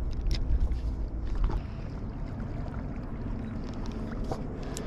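Wind rumbling on the microphone, strongest in the first second and a half, with a spinning reel being wound in to retrieve a squid jig.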